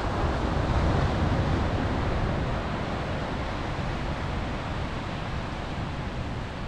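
Surf washing over a rocky shore with wind buffeting the microphone: a steady rushing noise over a low rumble.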